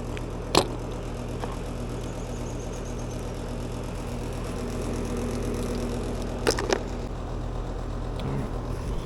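Air-conditioning unit running with a steady low hum, ready to be pumped down. Sharp metal clicks sound about half a second in and twice around six and a half seconds.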